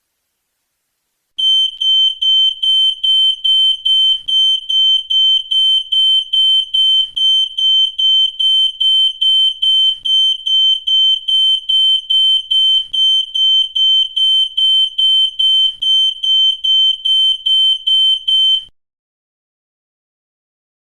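A high-pitched electronic alarm beeping in rapid, evenly spaced pulses on one steady pitch. It starts about a second and a half in and cuts off suddenly near the end.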